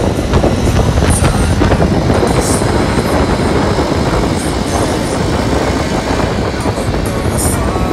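Quad ATV engines running steadily while riding at speed on a dirt road, with a heavy rumble over the microphone.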